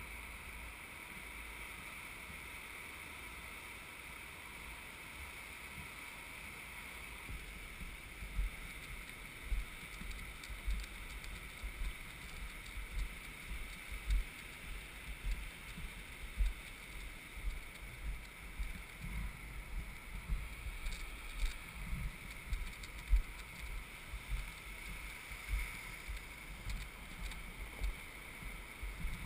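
Steady hiss of wind and surf on a beach, with irregular dull thumps on the microphone from about seven seconds in as the camera moves over the sand.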